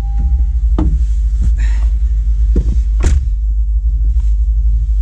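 A steady low rumble inside a car's cabin, with a short beep at the start and a few clicks and knocks as the driver moves in his seat.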